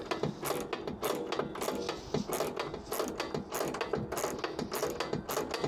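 Small hand ratchet wrench clicking in quick, uneven strokes as it runs a nut down onto a bolt.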